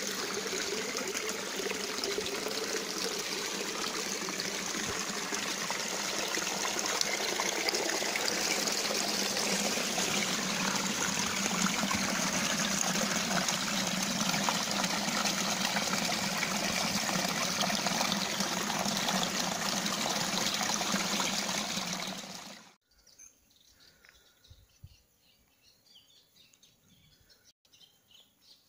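Water of a small stream trickling and splashing through a narrow channel in the rocks, a steady sound that cuts off abruptly a little after twenty seconds in.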